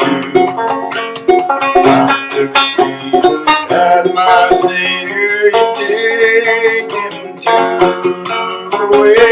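A banjo being played: a fast, continuous run of picked and strummed notes.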